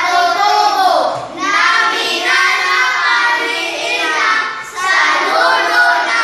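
Children's voices singing, in phrases with short breaks about a second in and near five seconds.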